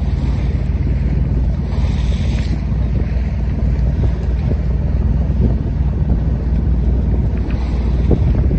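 Wind buffeting the microphone and water rushing along the hull of a sailing yacht under way, with a brief louder hiss about two seconds in.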